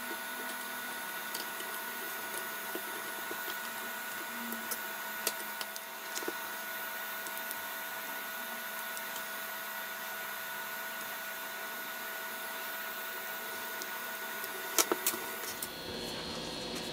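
Steady hiss and electrical hum, with small clicks and taps as a phone's motherboard and connectors are pressed back into its frame. A sharper click comes about five seconds in, and a quick cluster of three sharp clicks comes near the end.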